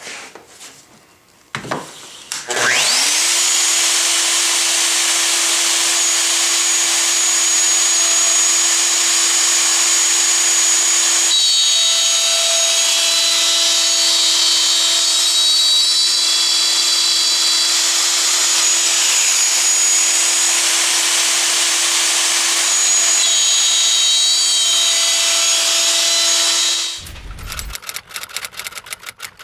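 Festool OF 2000 plunge router spinning up with a rising whine, then running at a steady high whine while its bit cuts a blind dado (a drawer-bottom slot) in a hardwood drawer side. It winds down about 27 seconds in.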